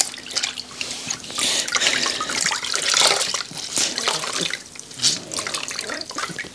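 A cloth being rinsed and wrung out by hand in a bucket of water: irregular splashing, trickling and dripping.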